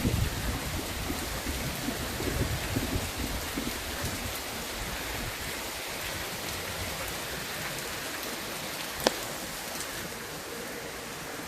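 Steady rain of a summer shower falling, with a low rumble of thunder dying away over the first few seconds. A single sharp click comes about nine seconds in.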